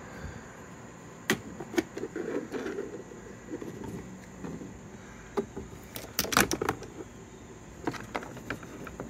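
Plastic tweeter trim panel on a car door being pulled off by hand: a few sharp plastic clicks and snaps with rustling handling in between, the loudest cluster of snaps about six seconds in.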